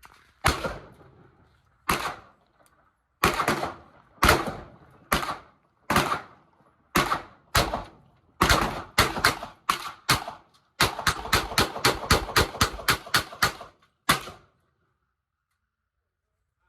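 Gunshots from a firearm at a shooting range: about a dozen single shots spaced roughly half a second to a second and a half apart, then a rapid string of about a dozen at three to four a second, and one last shot near the end.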